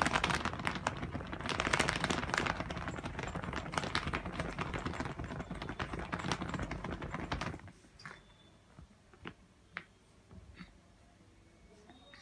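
Shih Tzu puppy's claws scratching and digging rapidly at a surface: a dense, fast run of clicks and scrapes that stops suddenly about seven and a half seconds in, followed by a few scattered taps.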